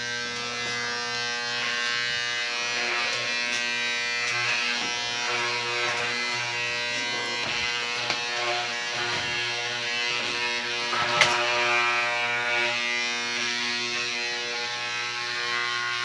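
Several electric hair clippers, hung together as a mace, running at once with a steady electric buzz. Occasional brushing clicks and a sharp knock about eleven seconds in come as they strike the head.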